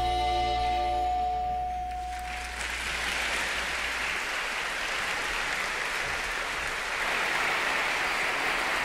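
The last held chord of the orchestral accompaniment dies away over the first couple of seconds, and an audience then applauds steadily to the end, a little louder toward the end.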